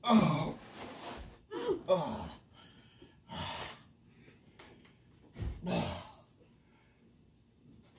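A few short gasps and grunts from people catching their breath while play-wrestling, about four of them; the first, right at the start, is the loudest.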